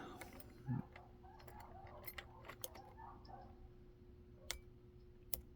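Faint, irregular metallic clicks and ticks of a deep hook lock pick probing and lifting the pins of a Kaba kick cylinder with security pins, held under tension by a pry bar. The sharpest clicks come about four and a half and five and a half seconds in.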